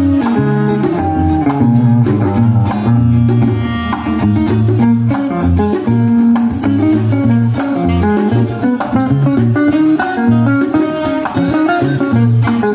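Live instrumental music: a hollow-body archtop electric guitar playing over a moving low bass line, with congas.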